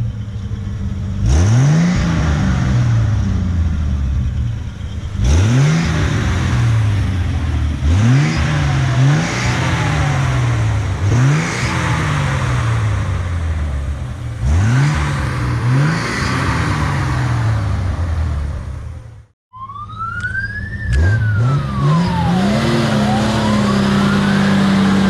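Classic carbureted pickup truck engine being revved again and again in short blips, each rev climbing and dropping back to idle. After a brief break about 19 seconds in, an engine revs up and holds at a high steady speed while a higher whine rises and falls.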